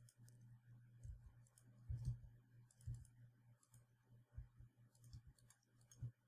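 Faint, scattered clicks from a computer mouse and keyboard, about a dozen at uneven intervals, as someone works at a computer. A low, steady hum runs underneath.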